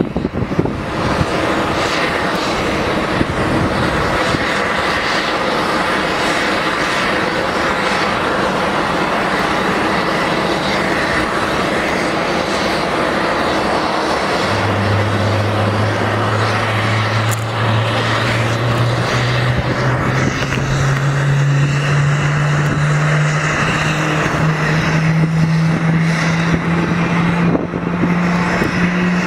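Jet aircraft noise from a Boeing 777-300ER during pushback, a steady rushing hiss. About halfway through, a low hum starts and climbs slowly and steadily in pitch, an engine spooling up on start.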